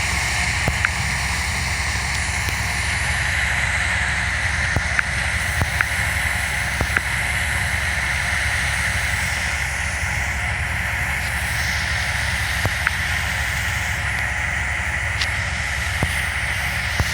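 Wheat-harvesting machine running steadily under load, a continuous mechanical din with a high, even hum over a low rumble and scattered sharp ticks.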